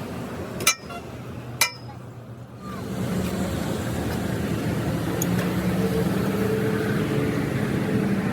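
Two sharp metal clinks about a second apart, then an engine comes in about three seconds in and runs steadily.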